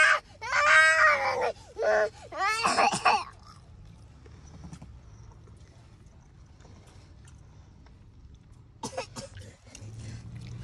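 A toddler's high-pitched wailing cries, in a few loud bursts over the first three seconds, then the low steady rumble of a car cabin with a few short knocks near the end.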